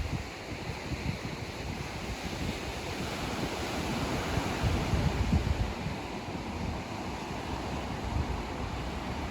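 Ocean waves washing onto a beach as a steady rush that swells about halfway through, with wind buffeting the microphone.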